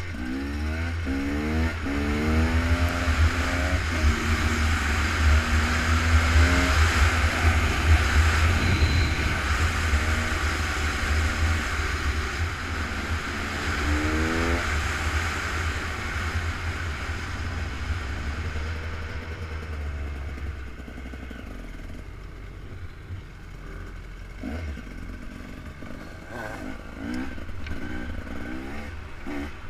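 Off-road vehicle engines revving hard through a quick series of rising pitches in the first few seconds and again about fourteen seconds in. They are loudest around eight seconds in, then die down to quieter running with a few more revs near the end.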